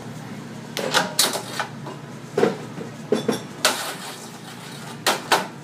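Metal knocks and clinks from handling the portafilter at an espresso machine: a series of sharp, irregularly spaced knocks, several close together about a second in, then more every second or so.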